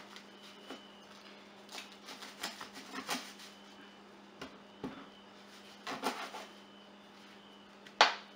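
Chef's knife cutting and scraping through a catfish on paper towel over a wooden board: scattered soft scrapes and taps, then a sharp knock near the end as the knife is laid down on the board. A low steady hum runs underneath.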